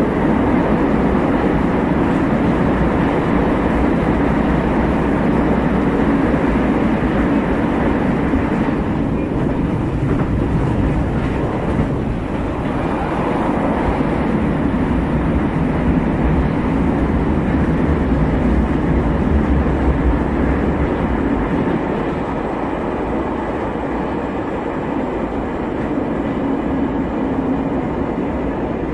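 Metro train running between stations, heard from inside the carriage: a steady, loud noise of the car travelling on the rails, easing a little in the last third.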